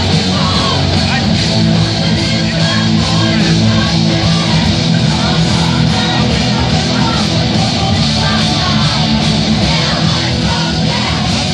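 Live rock music played by a large group of electric guitarists with drums, many voices singing together over it.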